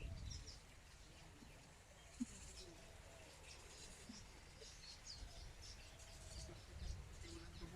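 Faint songbirds chirping, scattered short calls throughout, over a low rumble of wind.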